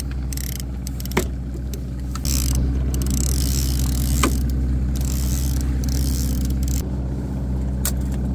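Boat engine running steadily at trolling speed, growing louder about two seconds in and easing back near the end, with a few sharp clicks.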